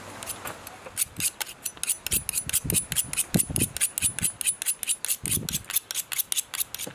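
Kitchen knife being sharpened against another steel implement: quick, even strokes of metal scraping on metal, about six a second, with a faint high ring and a few low knocks in between.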